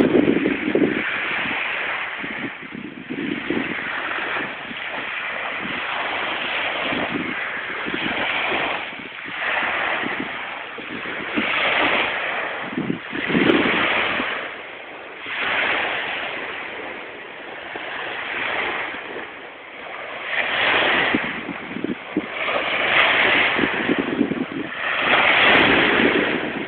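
Small waves washing onto a sandy beach, the surf swelling and falling back every couple of seconds, with wind buffeting the microphone at times.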